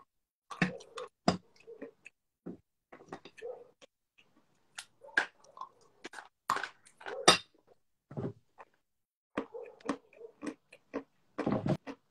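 Biting and chewing chunks of edible chalk: irregular sharp crunches, a few seconds apart or in quick pairs, with softer chewing between.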